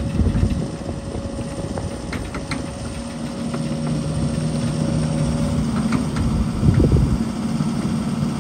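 Diesel engine of a Case CX130C tracked excavator running steadily, its note growing stronger and more even about three and a half seconds in.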